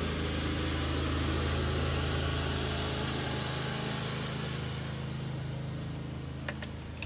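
Small engine running steadily, the drone of a riding lawn mower, slowly fading toward the end. Two short clicks near the end.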